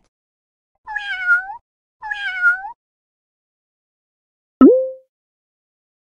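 Domestic cat meowing twice, each meow about two-thirds of a second long. About four and a half seconds in comes a short, sudden pop that slides up in pitch, louder than the meows.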